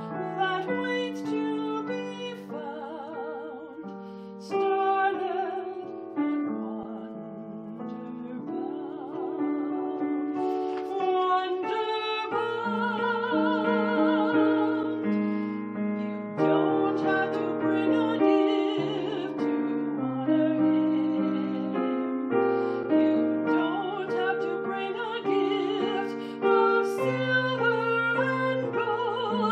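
Music: a woman singing sustained notes with vibrato in a classical style, with piano accompaniment.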